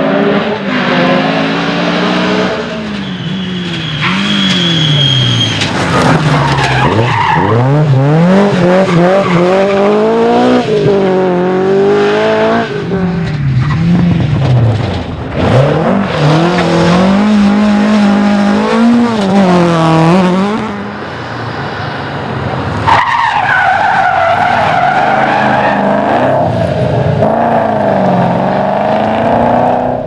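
Rally car engines at full throttle, one car after another, with the revs climbing and dropping again and again through gear changes and lifts. One of the cars is a Ford Escort Mk2. Near the end a car holds high revs with a steadier whine.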